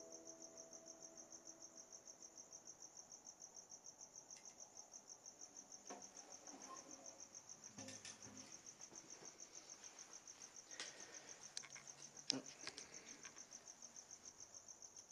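Faint cricket chirping steadily in rapid, even pulses. The last notes of a classical guitar die away in the first two seconds or so, and a few knocks and rustles come close to the microphone in the second half, the loudest a sharp knock about twelve seconds in.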